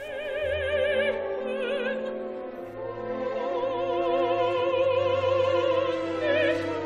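Classical music: an operatic voice singing long sustained notes with wide vibrato over a low, held orchestral accompaniment.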